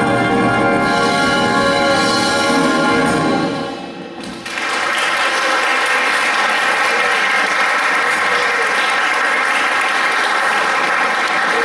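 Concert band of trumpets, flutes and other winds holding the final chord of a swing number, cutting off about four seconds in, followed by steady audience applause.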